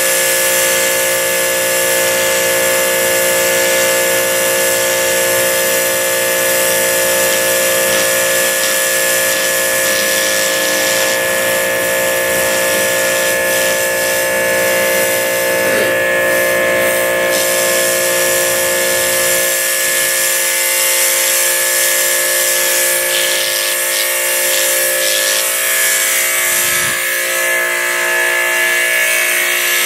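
Pressure washer running steadily with a constant whine, its high-pressure spray hissing against concrete.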